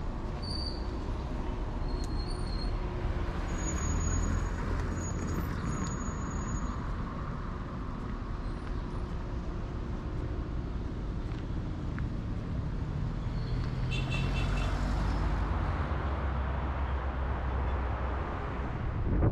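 Street traffic noise: a steady low rumble of car engines and tyres from vehicles driving and passing.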